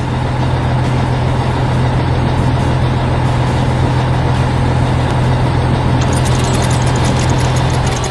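Heavy construction machine engine running steadily with a deep hum. A fast mechanical clicking, like a ratchet, joins about six seconds in.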